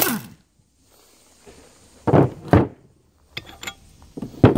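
An impact wrench running in reverse stops at the start, its whir winding down as it backs out the screw of a ball joint press. Then the heavy steel press frame and adapter cups knock down onto a wooden workbench: two loud clunks about two seconds in and a cluster of knocks near the end.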